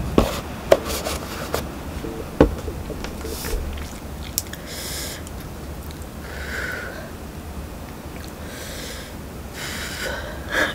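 A person sniffing and blowing out breaths through pursed lips, several times, after eating spicy Samyang fire noodles. A few sharp clicks and knocks come in the first two seconds as a milk carton is handled.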